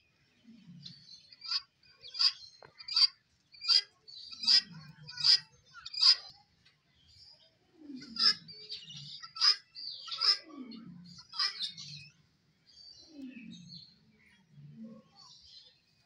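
Helmeted guinea fowl calling: a run of sharp, harsh calls, about one every three quarters of a second, over the first six seconds, then more calls after a short break. Lower, falling notes sound underneath.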